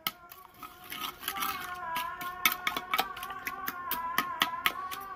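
Steel spoon beating raw eggs in a clay bowl, clicking against the bowl about three to four times a second from about two seconds in, over background music.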